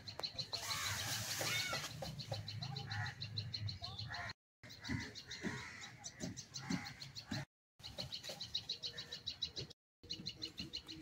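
A fast, steady pulsing chorus of calling animals with short lower calls over it and a burst of hiss about a second in, broken three times by brief dropouts to silence.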